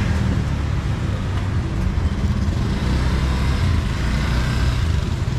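Street traffic: a steady low engine rumble from motor vehicles on the road.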